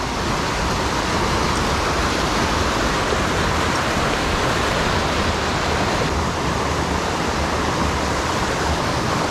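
Swollen mountain creek in high flow after a storm, rushing loudly and steadily over rocks.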